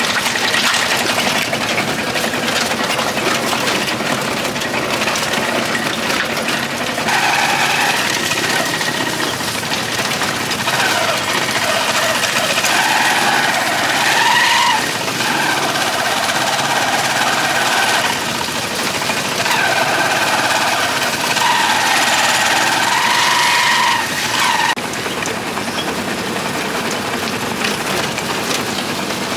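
Motorcycle engine running during a ride, with heavy rushing wind noise throughout. The engine note rises and falls in pitch from about a quarter of the way in until near the end.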